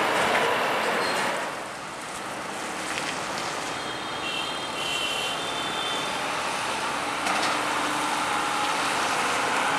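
Heavy truck hauling a tank-container trailer driving slowly past and pulling away, its diesel engine and tyres loudest at first as it passes close, then steadier as it moves off.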